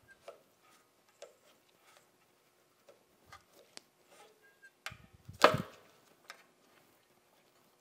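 Light clicks and knocks of the sharpener's drive belt being worked by hand off its metal drive pulley, with one loud slap about five and a half seconds in as the belt comes free.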